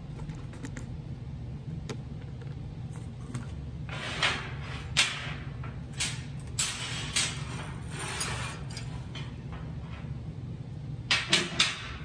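Things being handled and set down on a sheet-metal workbench: scattered knocks and clatters from about four seconds in, then three quick sharp knocks near the end, over a steady low hum.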